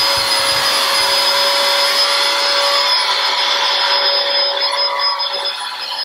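Small handheld desk vacuum cleaner running: a steady motor whine over a hiss of rushing air, which cuts off suddenly at the end.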